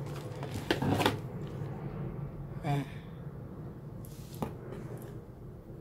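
Hands handling a watch's packaging: a few clicks and knocks with faint rustling as a watch box is slid out of its plastic sleeve and opened, over a low steady hum.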